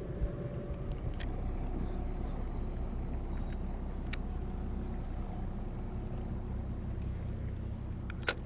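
Steady low drone of a small motorboat's engine running, with a few sharp clicks, the sharpest just before the end.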